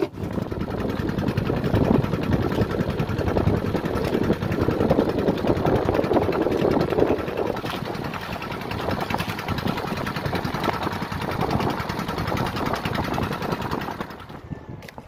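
Small engine of a motorized outrigger fishing boat running steadily under way, a fast, even putter. It cuts in abruptly and dies down near the end.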